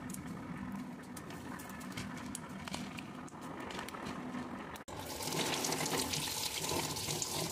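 Faint clicks and rustles of lychees being picked off their stems into a plastic bowl over a low hum. About five seconds in, a tap abruptly starts running water into the bowl of lychees to wash them, louder than anything before.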